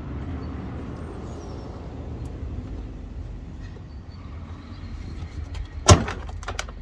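A car's front bumper being worked loose by hand: low rumbling handling noise, with one loud knock about six seconds in, then a couple of light clicks.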